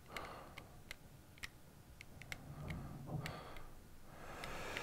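Faint, irregular small clicks in a quiet room, about a dozen scattered through the pause, with soft noise between them.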